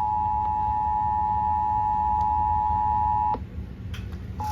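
Emergency Alert System attention signal, the steady two-tone alarm, broadcast over the radio at the start of a required monthly test relay. It cuts off abruptly about three seconds in, leaving only a low hum, and comes back about a second later.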